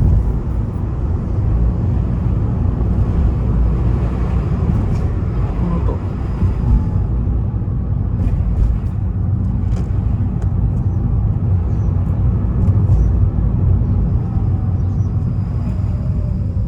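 Toyota Prius (ZVW30) on the move with its windows open: a steady rumble of road and tyre noise with scattered light clicks and knocks. Near the end, a faint whine falls in pitch.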